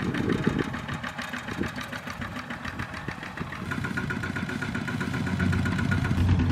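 Single-cylinder diesel engine of a Kubota two-wheel walking tractor running steadily under load. It grows louder about halfway through.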